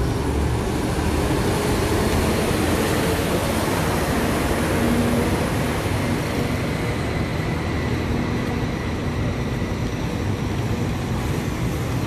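Steady city traffic noise: a continuous rush of vehicles with a low engine hum underneath.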